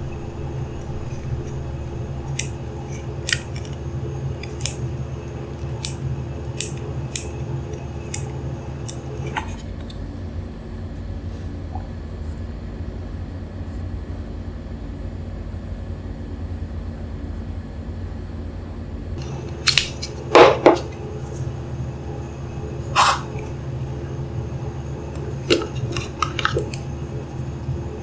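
Small hard plastic parts and packaging being handled: scattered sharp clicks and taps over a steady low hum. A quieter stretch comes in the middle, and a few louder clicks come near the end.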